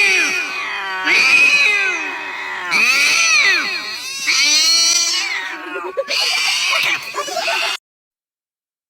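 A cat yowling in a string of long, loud meows, about five calls that each rise and fall in pitch, cutting off abruptly near the end.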